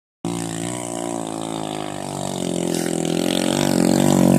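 Dirt bike engine pulling uphill under throttle, its pitch wavering a little as the rider works the throttle, getting louder as the bike comes closer.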